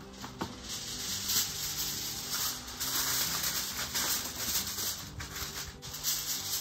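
Aluminium foil crinkling and rustling in irregular crackles as sheets are spread over a baking tray of ribs and pressed down around its edges.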